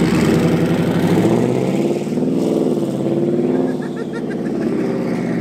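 A motor vehicle's engine running and revving, its pitch rising and falling a couple of times.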